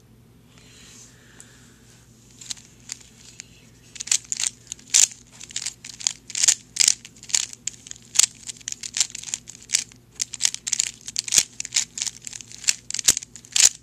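A 3x3 Rubik's Cube being turned through a scramble: a rapid run of sharp plastic clicks and clacks as the layers turn, a few scattered turns at first, then fast and continuous from about four seconds in.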